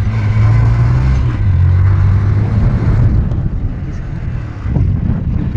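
Strong wind buffeting the microphone: a loud, uneven low rumble that eases a little about four seconds in.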